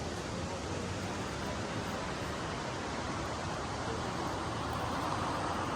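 Steady rushing noise of ocean surf, swelling a little near the end.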